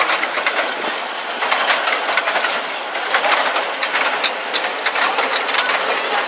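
Miniature ride-on park train rolling past, its wheels clicking and clattering over the rail joints in a rapid, irregular run of clicks.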